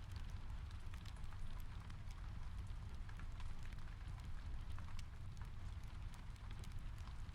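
Steady rain and a crackling fire: an even hiss of rain over a low rumble, sprinkled with many small sharp ticks and pops.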